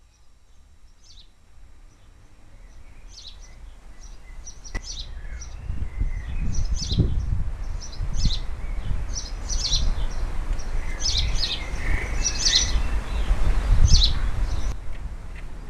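Small garden birds chirping in short, high, repeated calls, over a low rumbling noise that builds up from about four seconds in and is the loudest part of the sound.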